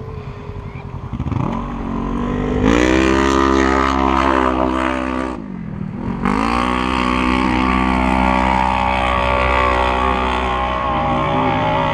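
Polaris RZR side-by-side engine revving hard under load on a steep hill climb. It winds up about a second in and holds high, the revs drop sharply around five and a half seconds in, then rise again and stay high.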